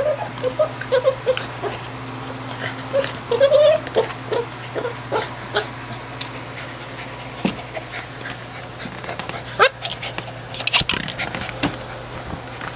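Boston Terrier whimpering in short, high, squeaky whines, mostly in the first four seconds, frustrated at a toy ball it cannot get a smaller ball out of. After that come scattered knocks and clicks, and a brief rustling burst about ten seconds in.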